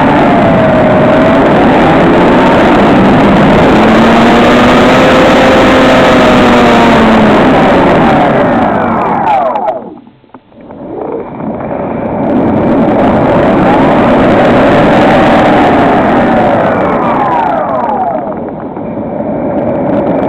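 HobbyKing SkyEye's electric motor and propeller running under throttle with a loud rush, the pitch wandering up and down. About halfway through the pitch falls away and the sound drops almost to nothing for a moment, then it builds back up.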